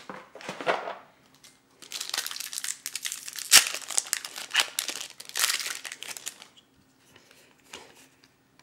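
Foil wrapper of a Flesh and Blood trading-card booster pack being torn open and crinkled by hand: dense crackling for about six seconds with one sharp, loud tear about three and a half seconds in. Near the end, only faint sounds of the cards being handled.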